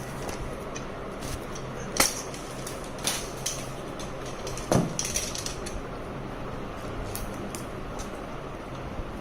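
Phone box and packaging being handled: scattered clicks and taps, a sharp click about two seconds in and a dull knock near the middle, over a steady low hum.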